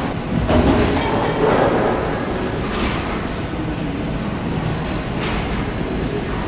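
Bowling alley din: a steady rumble of bowling balls rolling down the lanes, with a few short clatters of pins being struck.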